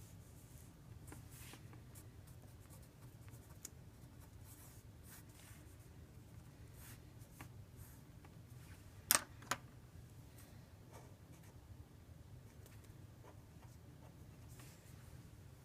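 Pen scratching out a diagram in short faint strokes, with two sharp clicks in quick succession a little over halfway through.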